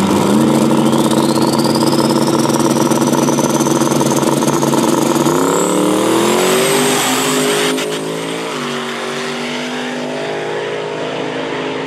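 Drag-racing car's engine at full throttle during a pass, starting suddenly loud. A high whine climbs steadily over the first several seconds, and the engine pitch rises again about five to seven seconds in. A brief crackle follows at about eight seconds, then the engine note drops lower and quieter.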